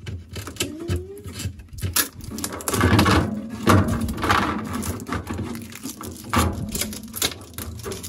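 Blue shipping tape being peeled off the plastic inner rim of a new chest freezer, a run of crackling and ripping sounds that is loudest and roughest about three to four and a half seconds in.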